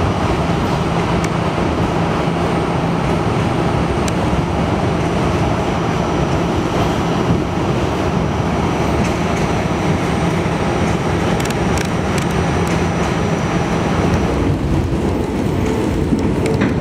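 NYC subway G train running at speed, heard from inside the car: steady rumble of wheels on rail with a low motor hum. About 14 seconds in the hum stops and the noise thins out, and a faint higher whine comes in near the end.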